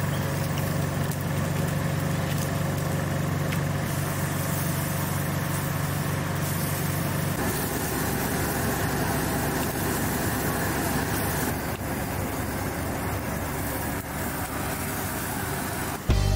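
A steady low motor hum under a constant hiss; the deepest part of the hum drops away about halfway through.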